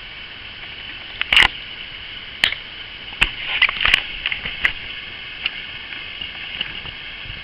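A string of irregular sharp clicks and taps, the loudest about a second in and a cluster near the middle, over a steady hiss: handling noise close to the microphone.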